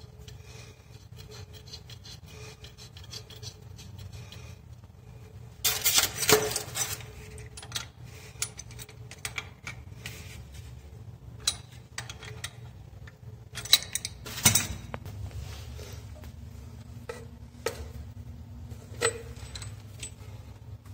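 Pliers scraping and clicking on the metal nut of a braided hose as it is tightened onto a chrome angle valve. A loud scraping burst comes about six seconds in, followed by scattered clicks and two sharp metallic knocks near the middle.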